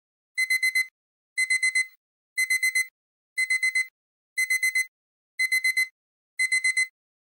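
Digital timer alarm beeping: groups of four quick high beeps, one group each second, repeating steadily. It signals that the countdown has run out.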